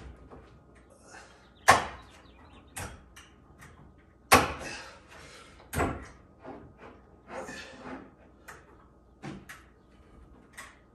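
Wooden knocks and clunks of cabinet boxes being handled, several sharp ones standing out, the loudest about two and four seconds in, with lighter clicks and rustling between.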